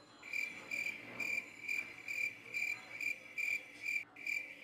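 A cricket chirping at an even pace, about two chirps a second.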